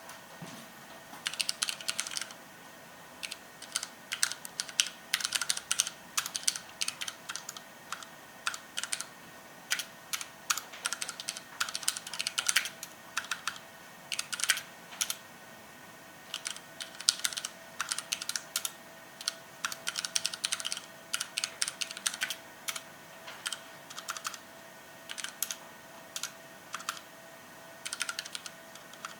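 Typing on a TEX Yoda TrackPoint mechanical keyboard with linear Cherry MX Red switches: rapid runs of key presses coming in bursts of a second or two, separated by brief pauses.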